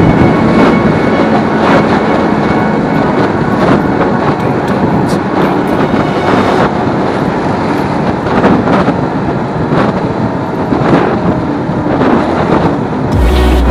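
Honda RS125 motorcycle engine running at cruising speed, mixed with heavy wind and road noise on the action camera's microphone. Deep wind buffeting sets in near the end.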